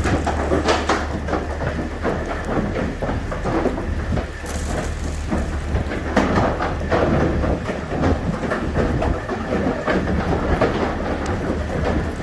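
Cattle hooves clattering and knocking on the metal floor of a livestock trailer as a bunch of cattle run out, a dense, uneven racket over a steady low hum.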